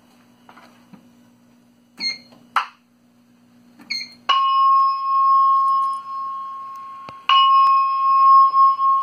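Simplex 4100U voice-evacuation speakers sounding an electronic chime tone twice, each a bell-like tone of about three seconds that starts sharply: the alert chime that comes before a paging announcement. Before the chime come a few short clicks and beeps over a low hum.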